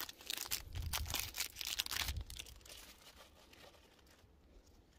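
Foil wrapper of a Pokémon card booster pack being torn open and crinkled by hand, a quick run of crackly tearing and crinkling that fades out after about two and a half seconds.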